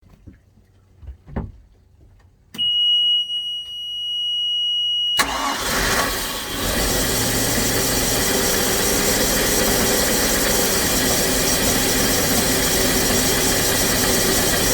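A steady high-pitched warning buzzer sounds for about two and a half seconds, then a Volvo Penta 305 cubic-inch (5.0 L) V8 marine engine starts about five seconds in and settles into a steady run.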